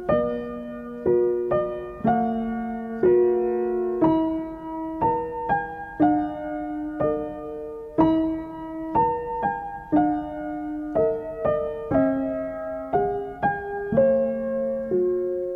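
Background piano music: a slow, gentle melody of single struck notes, about one or two a second, each ringing on and fading.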